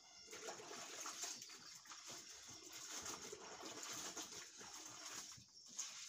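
Faint water sloshing and splashing in a plastic bucket as hands wash something in it.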